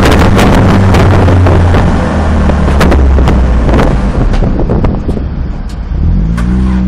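Citroën Saxo race car's engine heard from inside the cabin, running loud and steady under load with sharp cracks over it; about four seconds in the revs fall away, then climb again near the end.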